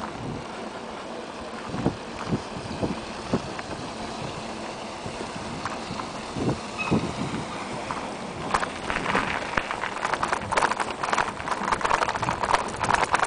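Bicycle and its camera rattling over a bumpy paved path: a few scattered low knocks at first, then dense, irregular clattering from about eight seconds in that grows busier toward the end.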